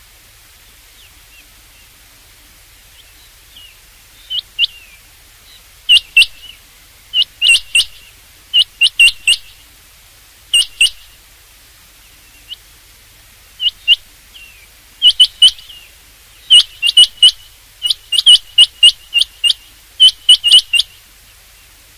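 Rain quail calling: sharp, high, whistled notes in quick groups of two to five, beginning about four seconds in and coming more often near the end.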